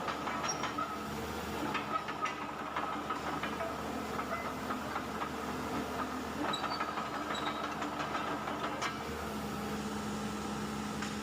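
Hitachi Zaxis 110 hydraulic excavator travelling on its tracks during a forward-and-reverse travel test in its high- and low-speed modes. The diesel engine and hydraulic pump run steadily with a whine, over scattered clanks from the steel tracks. The low hum grows stronger about nine seconds in.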